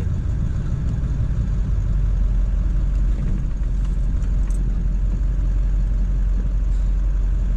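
Ford 7.3 Powerstroke V8 turbo-diesel pickup driving, heard from inside the cab: a steady low rumble of engine and road noise.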